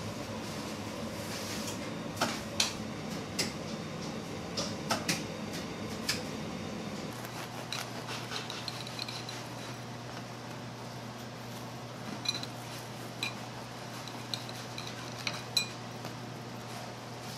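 Scattered clinks and taps of kitchen handling: metal baking trays, a serrated bread knife and a ceramic plate knocking together as bagels are moved and sliced. A steady hum of kitchen equipment lies underneath.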